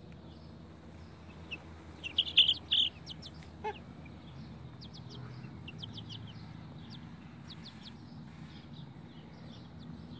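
Young chickens peeping: a loud cluster of high calls about two seconds in, then a run of short, quick peeps.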